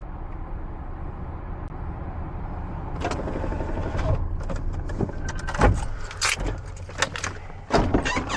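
A car's engine running with a steady low hum. From about three seconds in, a string of sharp clicks and knocks joins it.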